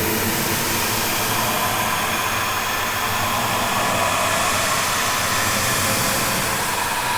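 Eerie haunted-house ambience sound effect: a steady rushing hiss with faint wavering tones that drift slowly upward.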